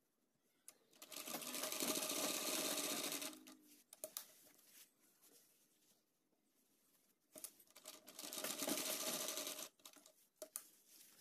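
Sewing machine stitching a seam in two runs of about two to three seconds each, with a quiet gap and a few small clicks between them.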